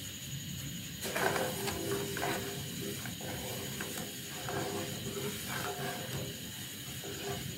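Wooden spatula stirring milk and sugar in a metal saucepan, scraping and grating over the pan's bottom in quick, irregular strokes that start about a second in. The sugar has not yet dissolved.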